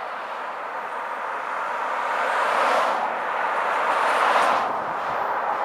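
Road traffic: cars passing on the adjacent road, tyre and engine noise swelling twice, a little before three seconds in and again around four seconds.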